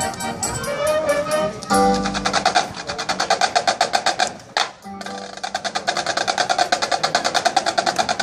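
Marching band playing, with percussion driving a fast pulsing rhythm of repeated notes and a short break about halfway through.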